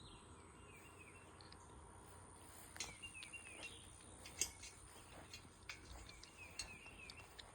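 Faint outdoor quiet with a bird calling in short falling chirps, about three at a time, repeated several times. A thin steady high tone and a few soft clicks sit under it.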